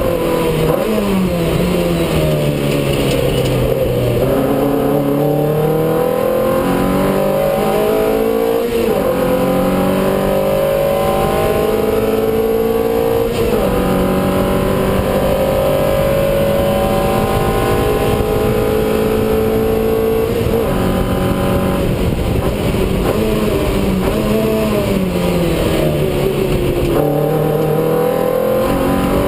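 Race car engine heard from inside the cockpit on a flying lap: revs drop under braking and downshifts at the start, climb steadily through the gears with an upshift about halfway through, fall again under braking near the end, then rise once more.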